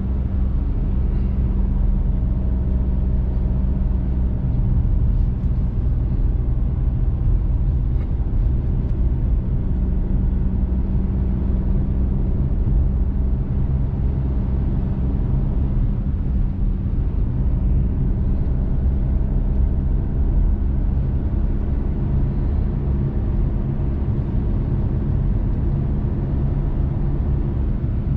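Steady engine drone and tyre noise of a diesel four-wheel-drive pickup truck driving up a mountain road, heard from inside the cab.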